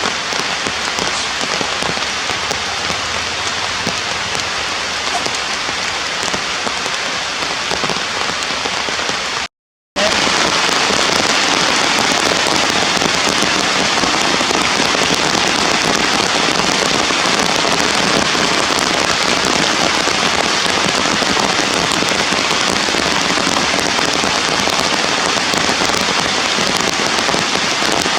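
Steady heavy rain falling, a dense even patter. It cuts out to silence for a moment about ten seconds in, then returns a little louder.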